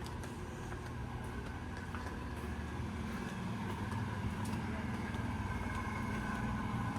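A motor vehicle's engine running steadily, growing gradually louder as it draws nearer.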